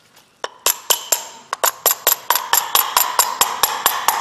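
Rapid light tapping with a brass rod on the metal end plate of an Ingersoll Rand Thunder Gun 1/2-inch air impact wrench, seating it into the housing during reassembly. The taps start about half a second in and come about six a second, each with a short metallic ring.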